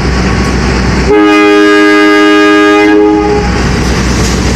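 Diesel locomotive horn sounding one long blast of about two seconds, starting about a second in, over the steady rumble of the train.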